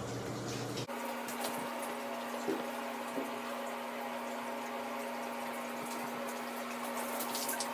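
Shower running: a steady hiss of water spray, with a faint steady low hum alongside.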